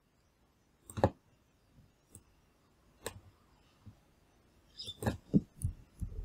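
Sharp clicks of a computer mouse and keyboard: single clicks about a second in and about three seconds in, then several clicks in quick succession near the end.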